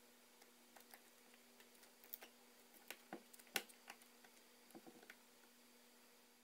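Faint, irregular small clicks and taps of the iPhone 4S main board and parts being fitted back into the phone's chassis by hand, the sharpest click about three and a half seconds in. A faint steady hum lies underneath.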